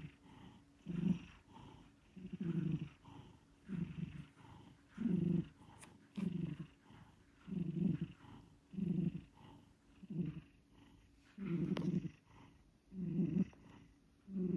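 Domestic cat snoring in its sleep: a low snore on each breath, repeating steadily about once every second and a half.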